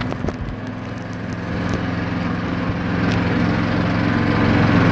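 ATV engine running while driving along a dirt trail, growing steadily louder from about a second and a half in. A sharp knock or rattle comes just after the start.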